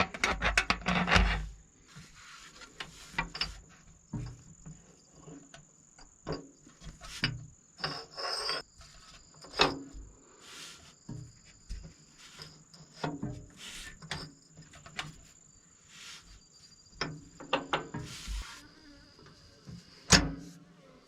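A steady, high insect trill, typical of crickets, runs until near the end. Over it come scattered clinks and knocks of metal parts and tools being handled as a new shear tube is fitted to the tractor's rear pinion shaft, with a sharper knock near the end.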